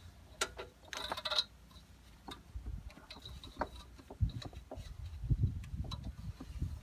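Irregular clicks, clinks and low knocks of hands working on a small tractor between pull-start attempts, with a quick run of sharp clicks about a second in. The engine is not running.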